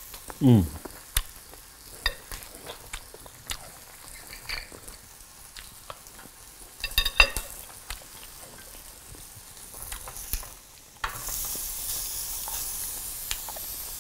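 Utensils clicking and tapping against a plate while eating, with a short falling vocal sound about half a second in. About eleven seconds in, pork cutlets are moved on a hot tabletop grill plate and a steady sizzle starts suddenly.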